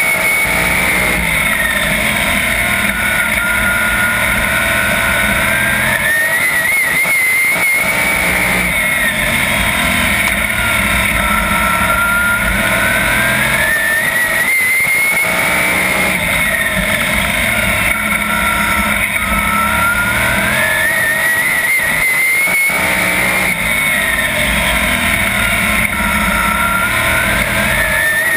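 410 sprint car's 410-cubic-inch V8 racing flat out, heard from the cockpit, its pitch climbing under full throttle and dropping back off in a steady cycle about every seven seconds as it goes around the oval.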